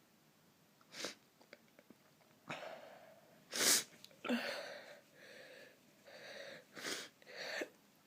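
A person sneezing in an induced sneezing session: several sharp, breathy bursts and intakes of breath, the loudest sneeze coming about three and a half seconds in.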